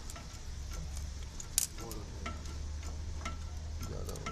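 Scattered light clicks and taps as a thin strip is pushed into the gap under a jacked-up railway coach wheel against the rail, with one sharper click about a second and a half in, over a steady low hum.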